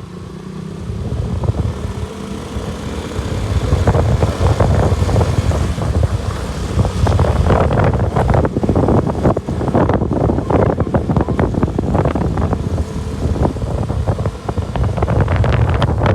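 KTM RC 200's single-cylinder engine running as the motorcycle is ridden, under heavy wind buffeting on the microphone that builds over the first few seconds and stays loud.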